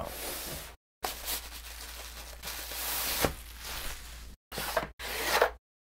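Packaging rustling and tearing as a boxed knife is unwrapped: a crinkly hiss with a sharp click about three seconds in, broken off by brief cuts to silence.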